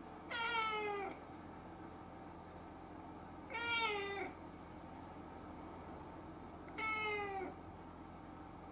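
Domestic cat meowing three times, about three seconds apart, each meow under a second long and falling in pitch at the end.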